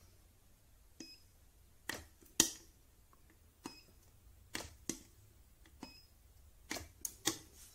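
Spot welder pen discharging into a 0.4 mm metal strip: a series of about ten sharp snapping cracks, some in quick pairs and triples, the loudest about two and a half seconds in. A few short high beeps fall between them. The strip turns out not to be welded firmly at this thickness.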